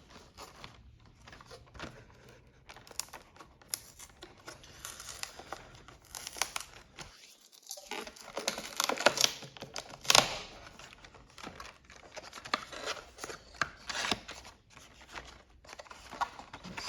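Packaging of a trading-card mini box being torn and crinkled open: irregular tearing, rustling and crackling with sharp clicks, loudest about halfway through.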